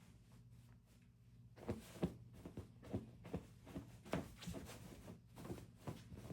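Irregular soft knocks and thumps, about two or three a second, starting about a second and a half in, over a low steady hum.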